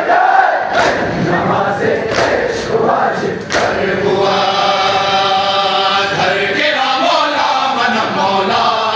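A large crowd of men chanting a Shia lament (nauha) together, with sharp hand slaps of chest-beating matam cutting through during the first three and a half seconds. About four seconds in, the voices settle into a long, held chant.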